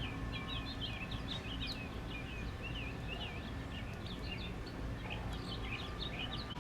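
Small birds chirping in quick, repeated short notes over a steady low background rumble.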